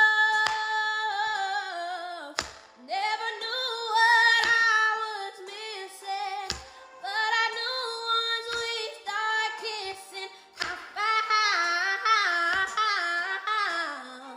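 A woman singing unaccompanied, holding long notes and sliding through drawn-out runs with vibrato. A chef's knife knocks on a cutting board about every two seconds as it cuts through pineapple.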